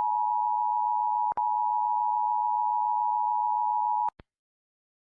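Emergency Alert System attention signal: a loud, steady two-note electronic tone just under 1 kHz, held for about four seconds with a brief dropout a little over a second in, then cutting off abruptly.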